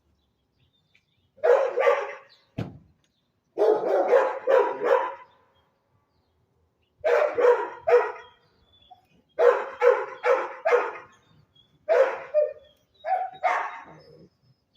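A dog barking in repeated bursts of two to four short barks, with pauses between. A single low thump sounds between the first two bursts.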